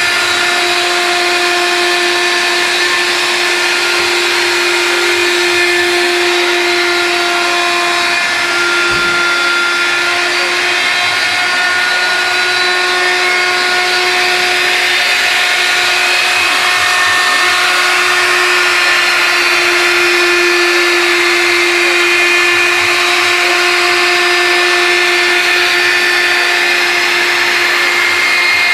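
CNC router spindle motor running with a steady whine, its pitch holding nearly constant, over a hissing motor noise.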